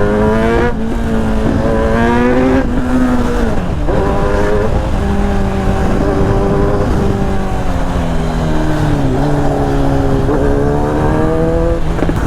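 Kawasaki Z900's inline-four engine under hard acceleration. The revs climb and drop sharply at gear changes about 1, 3 and 4 seconds in, hold steadier through the middle, then climb again near the end.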